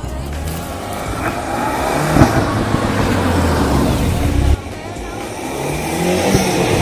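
A car engine revving, a sound effect, with its pitch rising and falling over a rushing hiss. It builds up, cuts off suddenly about two-thirds of the way in, then builds again.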